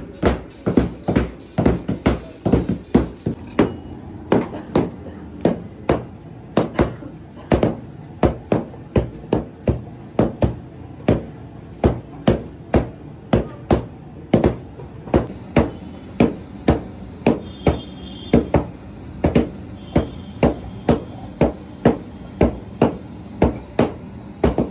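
Heavy mallets pounding sesame candy dough on stone slabs, several workers striking in turn. The dull knocks come at about two a second with an uneven rhythm.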